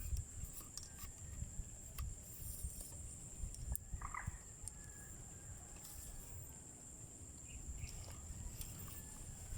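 Outdoor ambience: a steady high-pitched hum, low rumbling on the microphone, a few scattered clicks, and one short animal-like call about four seconds in.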